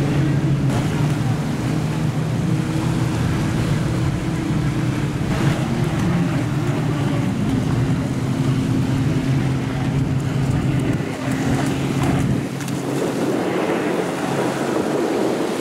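Electric motor of a ProBoat Recoil 26 radio-controlled boat running steadily as the boat skims and jumps over choppy waves, with waves washing and wind on the microphone. About twelve seconds in the motor sound fades and the wash of waves and wind is left.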